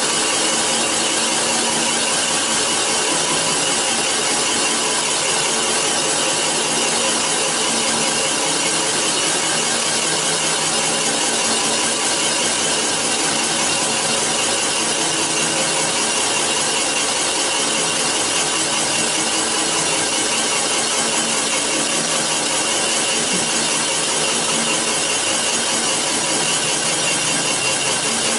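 CNC cylinder boring machine cutting down a bore in an iron engine block: a steady, even scraping hiss of the boring tool that keeps up without a break.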